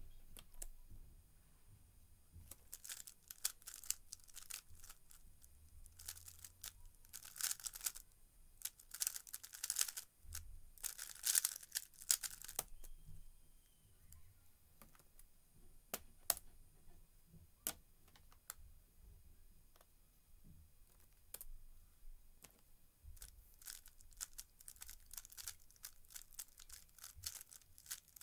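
A 3x3 speedcube turned very fast during a solve: a dense run of rapid plastic clicking and clacking lasting about ten seconds. A few scattered laptop key taps follow, then quicker cube turning resumes near the end.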